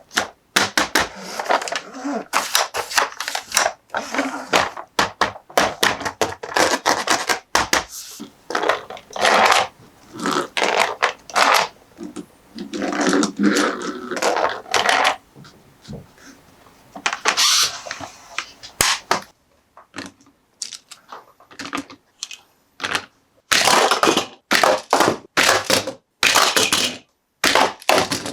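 Close-up handling of toy packaging and plastic toy pieces: many quick sharp clicks and taps, with a few longer stretches of rustling.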